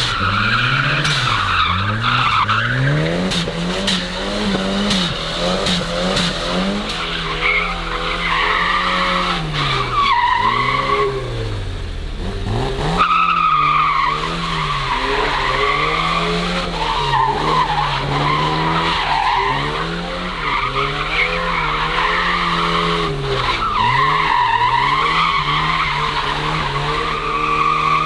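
A car drifting in circles on wet tarmac: its engine revs up and down every second or two while the tyres squeal. About halfway through, the sound changes to a second car doing the same.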